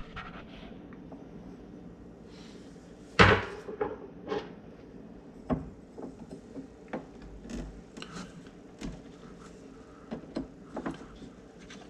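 Scattered knocks and clicks of a cabinet handle and screw being worked against a wooden kitchen cabinet door, the loudest knock about three seconds in, over a faint steady hum.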